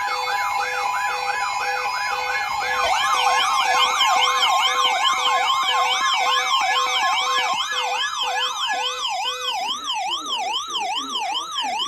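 Several electronic sirens sounding together: a fast yelp sweeping up and down about three to four times a second, joined about three seconds in by a higher sweeping siren, then changing to a slower sweep about twice a second near the end.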